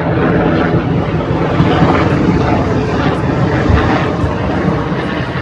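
Loud, steady rumble of motor traffic passing close by on a busy city street, easing off near the end.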